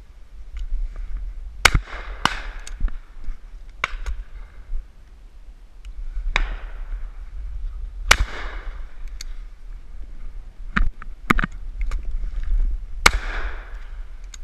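Repeated shotgun shots from a side-by-side double-barrelled shotgun. Loud close reports come as a pair about two seconds in, once around eight seconds and once near the end, each trailing off in a short echo. Fainter, more distant shots fall in between.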